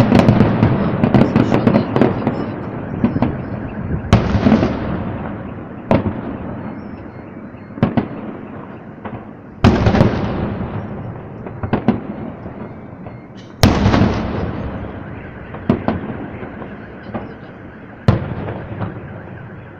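Aerial firework shells bursting: about six loud booms a few seconds apart, each trailing off in a long rumbling echo, with quick crackling between them.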